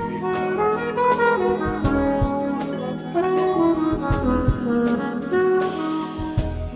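Live jazz band playing: a horn melody moving up and down over keys and bass, with drums keeping time in steady cymbal strokes and kick-drum thumps.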